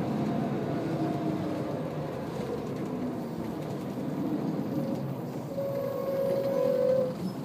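Scania L94UB bus heard from inside the saloon while under way: steady engine and road noise with a whine from the drivetrain and ZF automatic gearbox that rises and falls in pitch. Near the end a steadier whine holds for about a second and a half, then the sound eases off.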